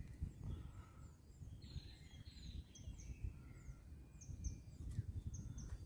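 Faint bird calls, short whistled notes and a run of quick down-slurred chirps, over a low wind rumble on the microphone.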